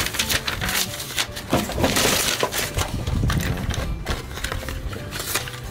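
A plastic tailgate lock handle and its paper packaging handled by hand: a run of small clicks and knocks with paper rustling, the rustle thickest about two seconds in.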